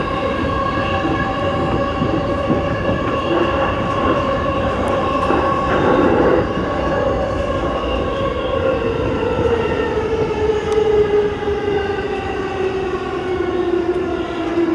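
JR East E233-series electric train running, heard from the driving cab: a steady rumble with a whine of several layered tones. The rumble swells briefly about six seconds in, as the train enters a tunnel, and from about eight seconds the whine falls slowly in pitch as the train slows for the station.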